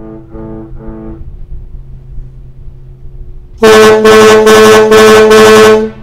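A fainter ship's whistle gives three short blasts at the start. Then the Washington State ferry MV Puyallup's whistle sounds one loud, deep blast of about two seconds, overloading the recording, as a signal in fog. A steady low hum runs underneath.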